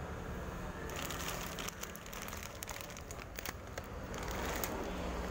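Plastic packaging crinkling and crackling as it is handled, a quick run of sharp crinkles from about a second in until near the end, over a low steady hum.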